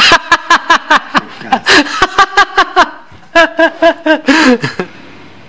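A man laughing hard in rapid 'ha-ha-ha' pulses, in two runs with a short break about three seconds in, dying away near the end.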